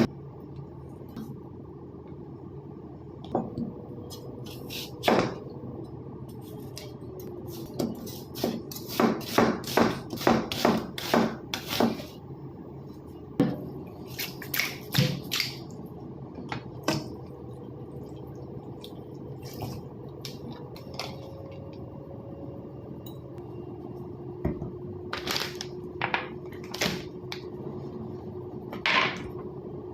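Kitchenware clattering: knocks and clinks of utensils, pots or a cutting board, coming in several runs of quick strikes over a steady low hum.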